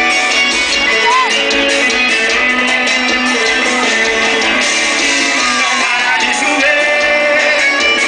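Live sertanejo band playing loudly, a singer's voice over guitar and band, continuous throughout.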